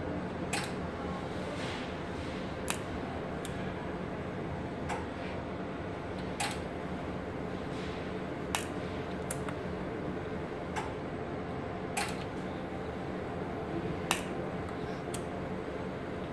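Capacitor-discharge welding machine firing over and over under a stress test: a sharp click every second or two, unevenly spaced, over a steady hum.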